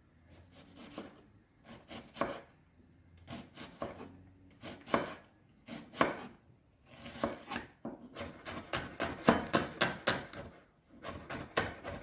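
Chef's knife cutting an onion on a wooden cutting board. At first come single, unevenly spaced strokes. From about seven seconds in they become a quick, even run of chops, about three or four a second, with a short pause near the end.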